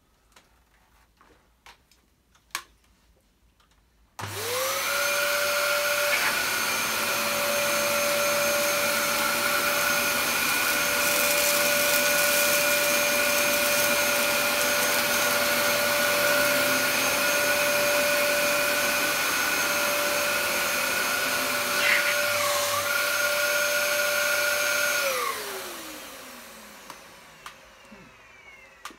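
Dyson DC07 upright vacuum cleaner switched on about four seconds in, its motor whine rising quickly to a steady pitch over a loud rush of air as it runs over carpet, picking up scattered dry particles. Its pitch wavers briefly once near the end, then it is switched off and the whine falls away as the motor runs down.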